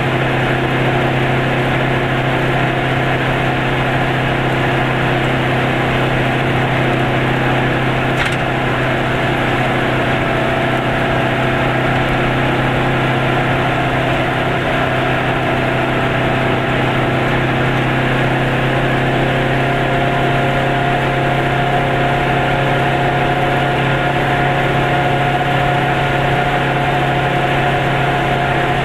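Goggomobil's small two-stroke twin engine running steadily at cruising speed, heard from inside the cabin with road noise. A steady drone carries a higher whine that comes up more strongly about two-thirds of the way in.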